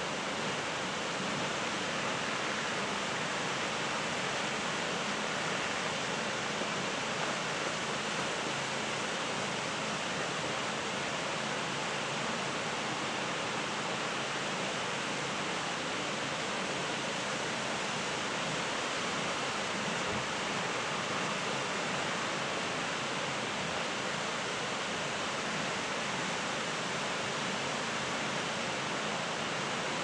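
Steady, even rush of a tall waterfall falling down a cliff face.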